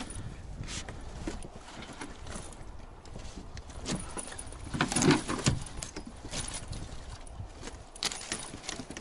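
Fishing landing net being handled in an inflatable boat: the mesh rustles, with small clicks, clinks and light knocks. The clinks and knocks come thickest about five seconds in.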